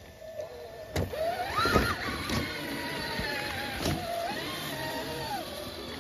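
Electric drive motor and gearbox of an Axial SCX6 1/6-scale RC rock crawler whining, the pitch rising and falling as the throttle is worked, with a sharp knock about a second in and another near two seconds as the crawler climbs over tree roots.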